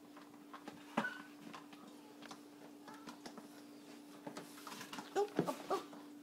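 Young bullmastiff puppies playing on a tile floor: light clicks and scuffles, a sharp knock about a second in, and a few short puppy cries about five seconds in, over a steady low hum.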